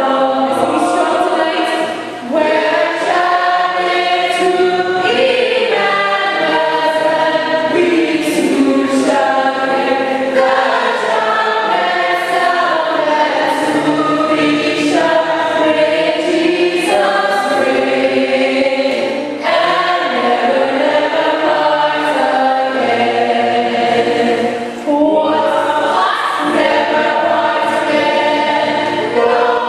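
A choir singing continuously in long sung phrases, with brief breaks between phrases about two seconds in, near the middle and about twenty-five seconds in.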